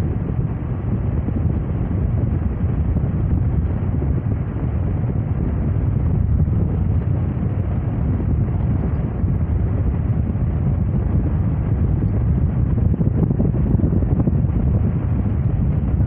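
Steady low rumble of wind buffeting and road noise from a moving car.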